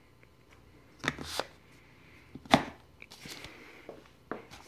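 Steel valve lifters being pushed into a plastic lifter retainer and handled on a bench: a few sharp knocks and clicks, the loudest about halfway.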